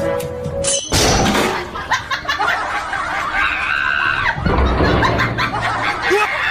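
Background music, cut by a sudden loud burst of noise about a second in, then a busy mix of sounds under the music.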